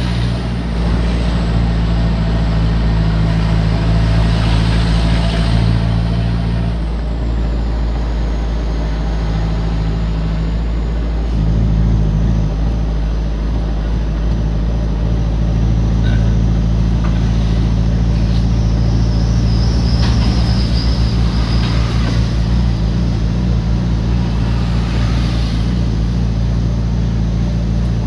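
Vehicle engine and road noise heard from inside the cab while driving on a dirt road, a steady low drone whose note changes about seven and again about eleven seconds in.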